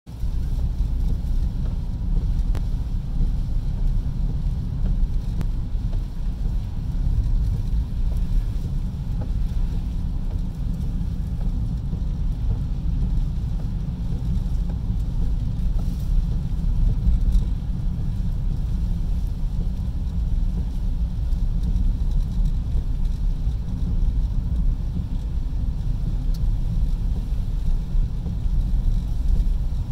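Inside a moving car's cabin: a steady low rumble of road and engine noise while driving on a wet road.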